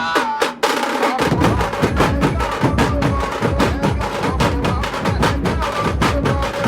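Loud DJ music from a large outdoor sound system. In the first second the bass drops out with a falling sweep, then a fast, steady drum beat with heavy bass kicks back in.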